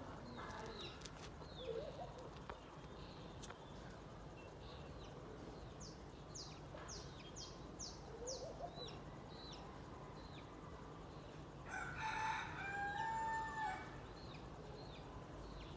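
A rooster crows once, a call of about two seconds starting near the end. Small birds chirp earlier, including a quick series of short falling chirps.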